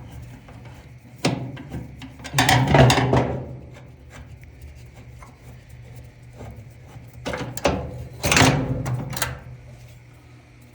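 Tool-and-part handling while the dryer's idler pulley screw is loosened: a few sharp clicks and two louder rattling, scraping bursts, about a second long each, near the start and again near the end.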